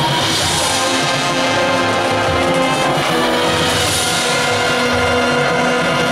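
High school marching band playing, holding long sustained chords.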